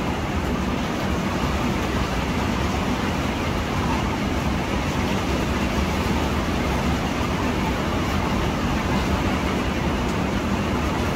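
Xiaomi portable handheld garment steamer running continuously: a steady low hum with a hiss of steam.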